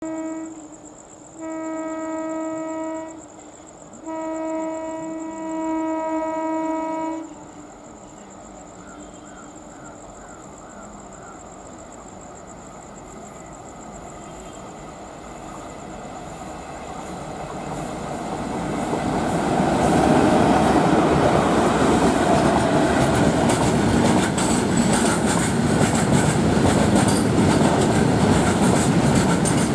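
Twin WAG-5 electric locomotives sounding their horn in three blasts, the last the longest. Then the steel freight train approaches and passes, its rumble growing louder and then running steadily with a clickety-clack of wheels on the rail joints.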